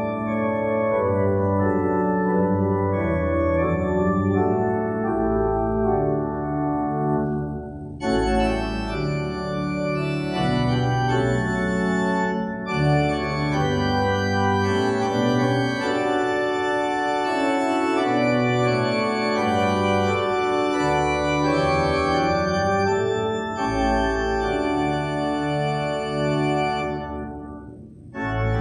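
Organ playing slow music in sustained chords over deep bass notes, with short pauses between phrases about eight seconds in and again near the end.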